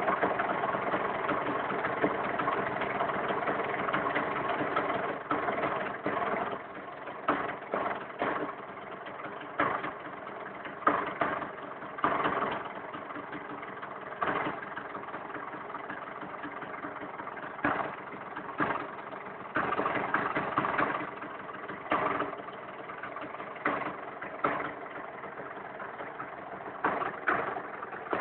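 Honda MTX two-stroke single-cylinder motorcycle engine, fitted with the ATAC exhaust chamber, running. It is held at higher revs for the first few seconds, then idles with repeated short throttle blips.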